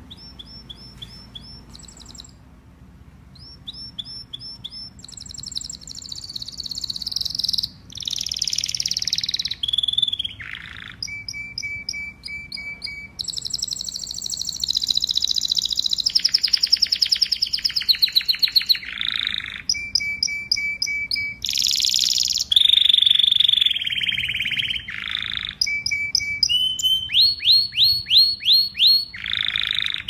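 Domestic canary in full song: a long, varied run of high phrases, each a fast series of repeated notes or a rolling trill, faint at first and louder after a few seconds.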